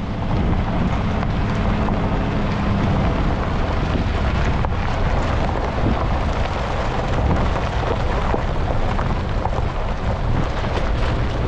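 Wind rushing and buffeting over a microphone held out the side window of a moving pickup truck towing a trailer on a dirt road, with the truck's running and road noise beneath. A low hum in the mix fades out about three seconds in.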